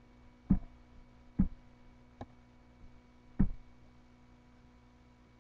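Computer mouse clicking four times at uneven intervals of about a second, the third click fainter, over a faint steady electrical hum.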